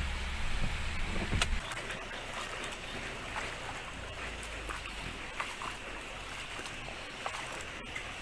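Steady hiss of rain and floodwater, with faint scattered ticks; a low hum underneath stops about a second and a half in.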